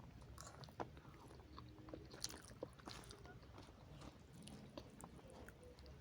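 Faint chewing and mouth sounds of people eating noodles, with irregular small clicks and smacks.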